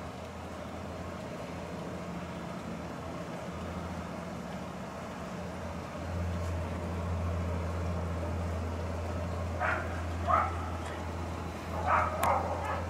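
A steady low mechanical hum, with a dog barking a few times in short bursts near the end.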